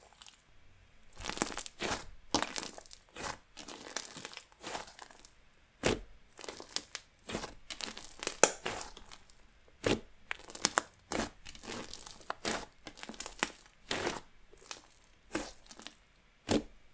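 Fluffy, puffy white-glue inflating slime being stretched, folded and squeezed by hand, giving a dense, irregular run of sticky crackles and small pops, with one louder snap about eight and a half seconds in.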